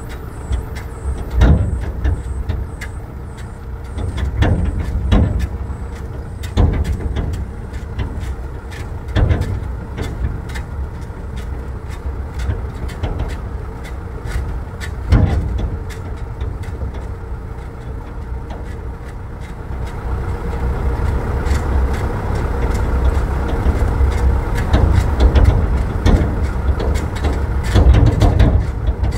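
Motor vehicle travelling along a rough track: a steady low engine and road rumble, broken by repeated sharp knocks and jolts, getting louder about two-thirds of the way through.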